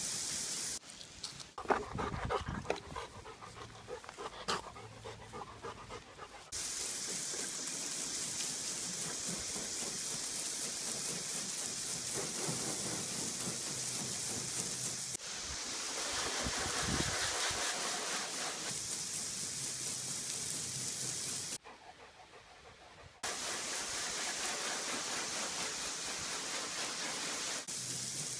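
Garden hose spraying water onto a car's windshield and hood: a steady hiss that stops for a few seconds near the start and again briefly later. During the first pause there are irregular close breathy sounds and a few knocks, like a dog panting.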